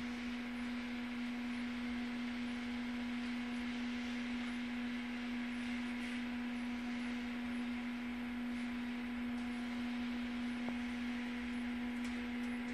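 Steady electrical hum from a hot-wire foam cutter running at about 4 A while its heated steel wire cuts through expanded polystyrene. It is a single held tone with fainter overtones above it.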